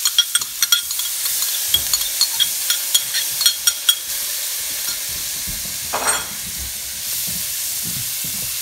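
Chopped onions, minced garlic and brown sugar sizzling as they hit hot butter and oil in a frying pan, with sharp popping and crackling for the first few seconds that settles into a steady sizzle. A spatula stirs them through the pan near the end.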